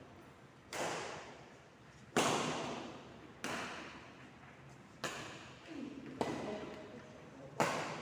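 A ball being struck back and forth in a steady rally: six sharp hits about a second and a half apart, each ringing on with a hall-like echo.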